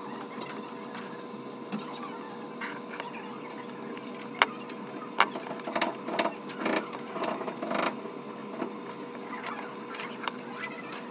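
X-Acto knife scraping and picking at a hardened hand cast: a run of sharp scratches and clicks, densest in the middle, over a steady hum.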